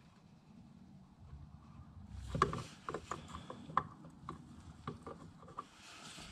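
Hand-held livestock drench gun clicking as it is worked to pump gear oil into a differential: a run of irregular sharp mechanical clicks and knocks starting about two seconds in, the loudest early in the run.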